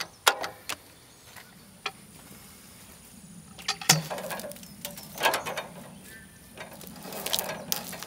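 Scattered clicks and clanks from handling a log on a Wood-Mizer LT15 portable sawmill, with louder clusters of clatter about four, five and seven seconds in.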